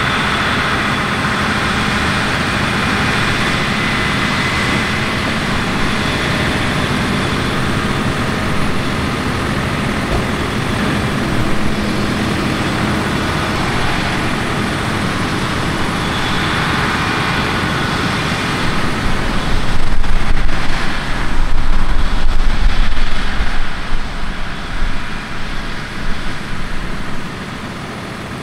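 Heavy harvest machinery engines running steadily. About two-thirds of the way through, a loud, uneven low rumble comes in for several seconds and fades near the end.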